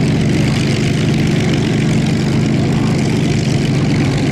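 A Hawker biplane fighter in flight, its Rolls-Royce Kestrel V12 engine and propeller running steadily at a constant pitch.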